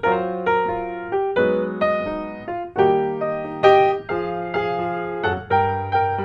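Background piano music: a gentle melody of struck notes and chords, each note fading after it is played, several notes a second.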